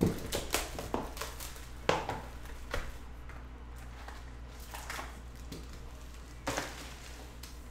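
A sealed box of trading cards being opened and handled: a quick series of clicks, taps and rustles in the first three seconds, quieter handling after, and another burst of rustling near the end. A steady low hum runs underneath.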